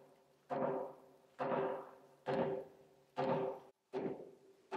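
Heavy wooden mallet striking the timber of a floor frame: five resonant thuds about a second apart, each ringing briefly.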